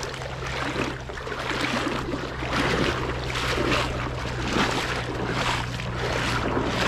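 Small pike thrashing at the water's surface as it is reeled in on a light spinning rod, splashing irregularly throughout.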